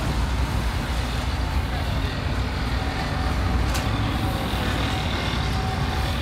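City transit bus engine running with a low, steady rumble as the bus pulls slowly past at close range, amid street traffic noise.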